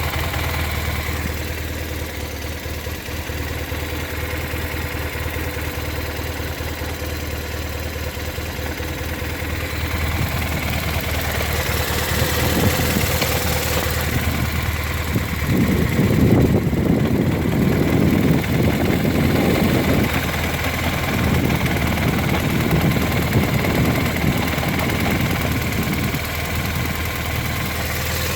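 BMW R1200R boxer flat-twin engine idling, with an irregular rattle that the owner puts down to the transmission. The rattle comes in about ten seconds in, is strongest just past the middle and eases off near the end.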